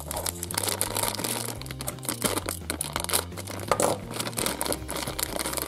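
Thin plastic wrapper crinkling and tearing as it is pulled off a toy capsule by hand, a fast, irregular run of crackles.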